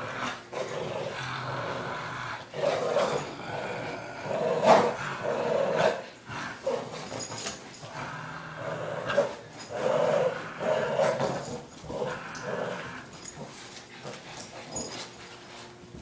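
Boston Terrier growling in repeated short bursts while tugging hard on a rope toy, with one sharp sound about five seconds in.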